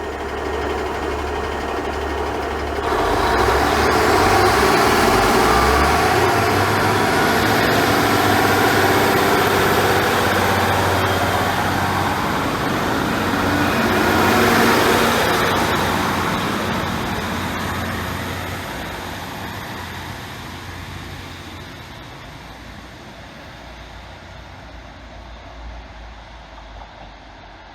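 Diesel train engine running, then a train passing close with loud rumbling and a thin high whine from the wheels or transmission. The sound dies away over the last several seconds as the train recedes.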